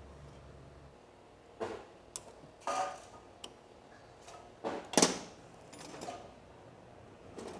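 Scattered metal clicks and knocks from motorcycle engine parts and hand tools being handled during reassembly, the loudest about five seconds in. A low hum fades out within the first second.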